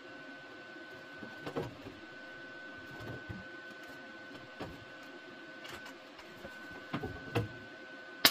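A steady electrical hum with a few soft taps and rustles as a sheet-metal patch panel is pressed by hand against the car's rear fender. At the very end a MIG welder strikes a short, loud crackling tack weld.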